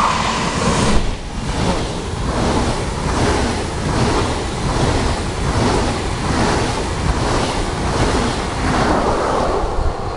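SBB double-deck InterCity train passing close by at speed: a loud rush of wheel and air noise with a regular beat of wheelsets going by, about two a second, and wind buffeting the microphone.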